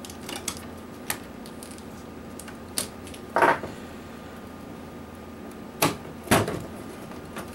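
Scattered light clicks and knocks from a PlayStation 3 motherboard being handled and worked on at the bench, with a short scrape about three and a half seconds in and a louder knock a little after six seconds.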